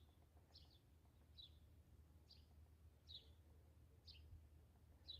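Faint bird call: a short, high chirp repeated evenly, about seven times, roughly one every second.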